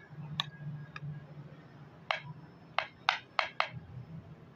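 Metal spoon clinking and tapping against a plate while scooping rice and curry: about seven short sharp clicks, four of them in quick succession about three seconds in.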